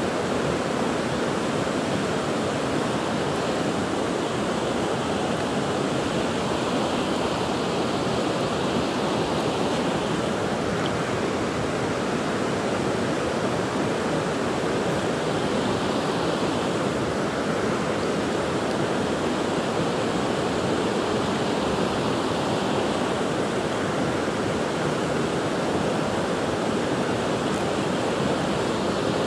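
Steady rush of a river running over rocky rapids, with rain falling on the water.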